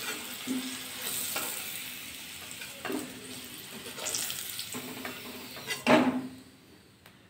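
Potato wedges sizzling in hot oil in a kadai while a metal spatula scrapes along the pan and lifts them out, with a few short scrapes and a louder one about six seconds in. The sizzle dies away near the end once the pan is empty.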